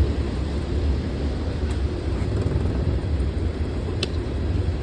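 Boat's outboard motor running steadily at low speed, a constant low rumble, with one brief click about four seconds in.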